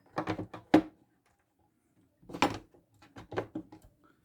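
Hand tools knocking and clunking against a toolbox drawer as they are handled: a few quick knocks in the first second, another around the middle and a short run of them near the end.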